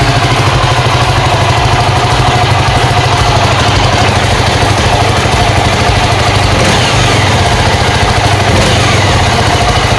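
Yezdi Scrambler's 334cc single-cylinder, air- and oil-cooled engine idling steadily, heard close to its exhaust.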